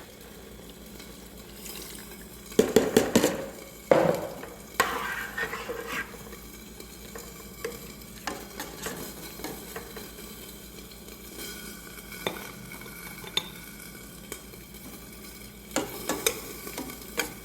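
Cold milk being stirred into cooked rice in a pot with a spoon, the spoon knocking against the pot. There is a cluster of louder clatters about three seconds in and a few more near the end.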